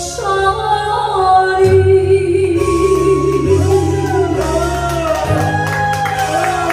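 A song with a singing voice holding long, wavering notes over an accompaniment whose low bass note shifts every second or two.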